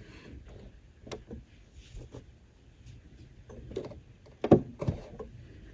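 Scattered soft clicks and knocks of a quilt being shifted and lined up under a sewing machine's presser foot and needle, with two sharper knocks about four and a half seconds in. The machine is not running.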